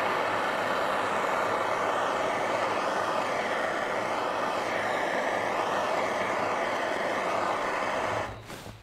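Bernzomatic propane torch flame burning with a steady hissing rush as it scorches a pine board piece, shutting off about eight seconds in.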